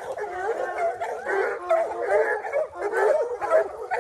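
A pack of hunting hounds baying and howling, several dogs at once in overlapping drawn-out bawls that rise and fall in pitch.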